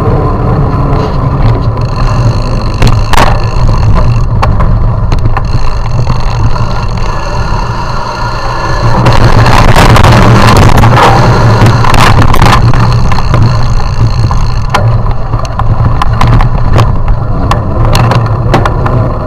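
Steady low rumble of wind and rolling noise on a camera moving along a brick-paved path, with a faint steady whine and frequent clicks and rattles from bumps. It grows louder and rougher about nine seconds in for a few seconds, then settles back.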